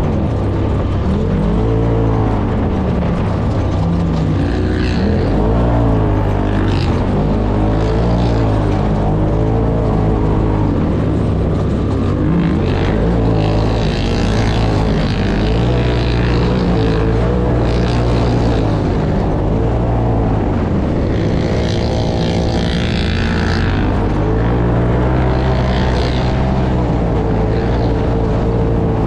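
UTV engine running under throttle on a sandy desert trail, its pitch rising and falling as the driver works the throttle.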